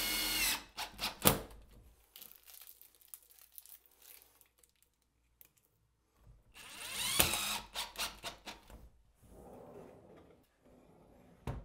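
Cordless drill driving screws into a door to fit a pull handle. There is a short run of the motor right at the start and another about seven seconds in, each followed by a few sharp clicks.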